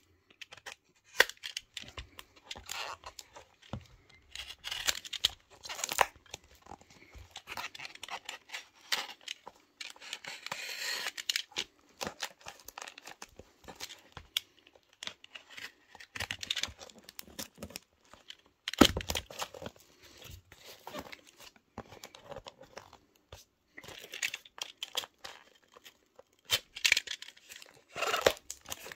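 Brown paper parcel wrapping and clear packing tape being torn and crinkled by hand as the parcel is opened, in irregular rustling bursts. One sharp knock, the loudest sound, comes about two-thirds of the way through.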